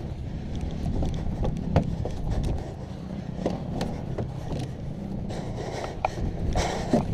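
Footsteps climbing wooden stairs: irregular knocks and scuffs of feet on the wooden treads, over a steady low rumble.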